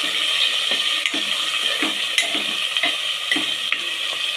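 Onions, chillies, garlic and ginger sizzling in hot oil in a metal pot, stirred with a spoon that knocks and scrapes against the pot's side at irregular moments.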